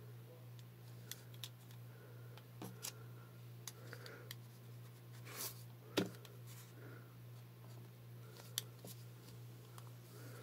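Faint scratching and tapping of a mechanical pencil on paper, with scattered small clicks, the loudest about six seconds in, over a steady low hum.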